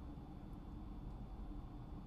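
Quiet room tone: a faint, steady low hum and hiss with no distinct event.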